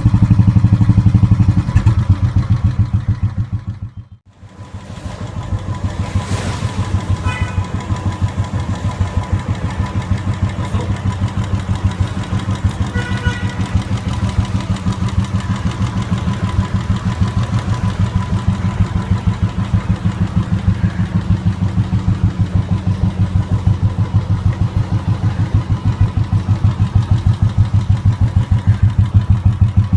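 Royal Enfield Classic 350's single-cylinder engine running through a short-bottle 'dholki' silencer, giving a steady, evenly pulsing thump at idle. The sound cuts out briefly about four seconds in, then comes back and keeps thumping.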